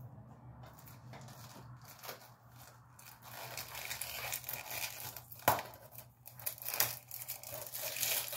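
Packaging being torn open and crinkled by hand, starting about three seconds in, with a few sharp clicks and snaps among the rustling.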